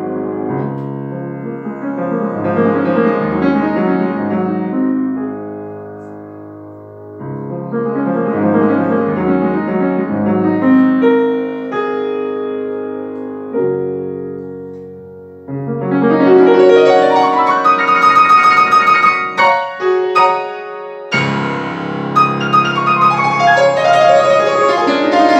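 Grand piano played solo, a virtuosic classical piece: softer sustained passages in the first half, then loud, fast chords and runs in the second half with a brief break before the final run.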